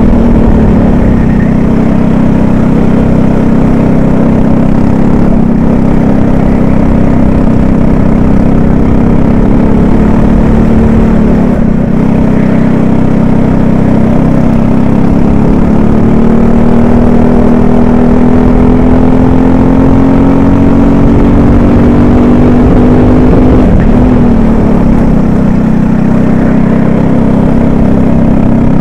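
Racing kart engine heard onboard, loud and running hard: its pitch climbs steadily along each straight and drops sharply three times as the kart slows for corners.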